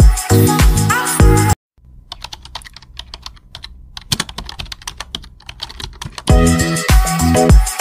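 Electronic background music with a heavy beat cuts out about a second and a half in, leaving a few seconds of quick, irregular keyboard-typing clicks, before the music comes back in near the end.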